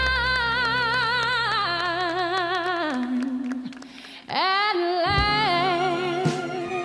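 A solo female voice singing long wordless held notes with wide vibrato, as recorded music for a dance. The first note slides down and fades about three seconds in; after a short lull a new note swoops up and is held again.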